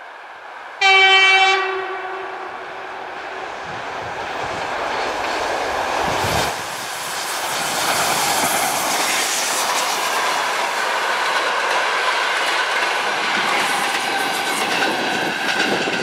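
A TEP70 diesel passenger locomotive sounds one short horn blast about a second in. Then it passes with its train of passenger coaches, the noise building to a steady loud rush of the train going by, with wheels clicking over rail joints near the end.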